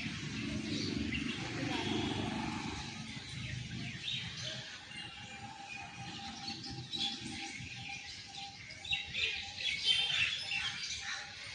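Several birds chirping and calling, with many short high chirps throughout and a low rumble under the first few seconds.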